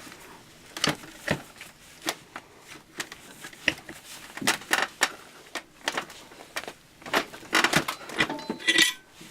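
Steel chain links and a bench vise clinking and clanking irregularly as a lap link is squeezed shut in the vise, with a brief metallic ring near the end.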